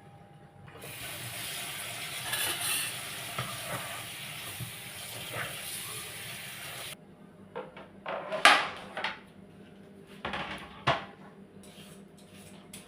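Food sizzling in a hot pan for about six seconds, then stopping suddenly. Several clinks and knocks of kitchen utensils and dishes follow, the loudest about eight and a half seconds in.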